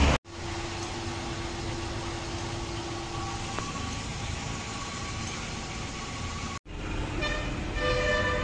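Steady engine and road noise of a vehicle in traffic, in short clips joined by abrupt cuts. A held horn-like tone sits under the first few seconds, and several steady tones enter about seven seconds in.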